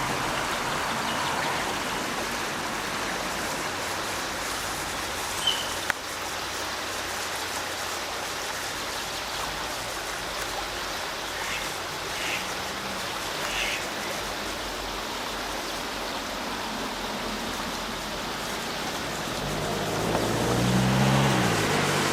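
Steady rushing noise, like running water, with a few brief high chirps. Near the end a low hum rises and falls.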